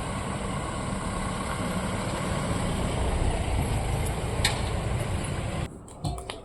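Steady rumble of a running vehicle, with a single click about four and a half seconds in; the rumble cuts off suddenly near the end.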